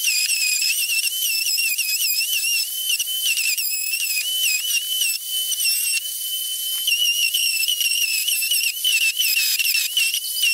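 Electric sander with 60-grit paper running on wooden edges: a high motor whine over a grinding hiss, its pitch dipping and recovering again and again as it is pressed onto the wood and eased off.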